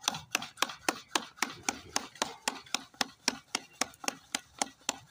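Bare hands patting a ball of maize-flour dough flat into a makki ki roti on a flour-dusted steel platter: steady, even slaps, about four a second.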